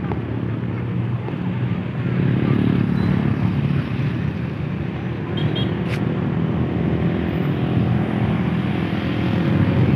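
Steady low engine drone with several held tones, over outdoor wind noise. A single short click about six seconds in.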